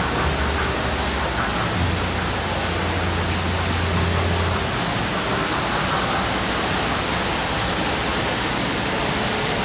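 Steady rush of running water, with a low hum under it for the first few seconds.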